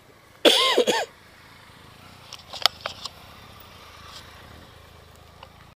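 A short two-part voice exclamation, rising and falling in pitch, about half a second in, then a few sharp clicks, over the faint low hum of a motorcycle engine idling.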